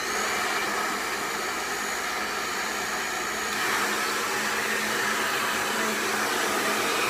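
Xtava Allure 2200 W professional hair dryer running: a steady rush of blowing air with a thin high whine, like a wind tunnel. About halfway through, the whine drops out and the blowing gets slightly louder.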